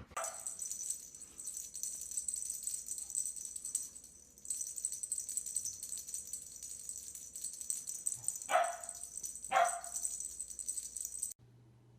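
A dog yelps twice, two short calls falling in pitch about a second apart, over a steady high hiss. The sound cuts off suddenly near the end.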